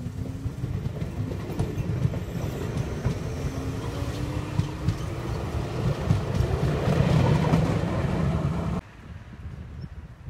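Circumvesuviana electric commuter train rolling past on the track: a steady rumble with a whine that rises steadily in pitch as it gathers speed, and wheels clicking over the rails. The sound cuts off abruptly near the end, leaving faint wind.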